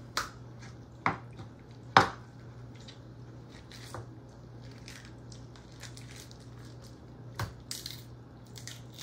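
Knife chopping through raw chicken onto a wooden cutting board: three sharp knocks about a second apart, then quieter wet squishing as the raw chicken is pulled apart by hand, with a single fainter knock near the end.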